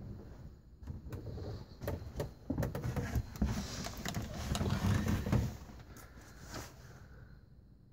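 Rustling, knocking handling noise with scattered sharp clicks over a low rumble, loudest in the middle and dying away after about six seconds.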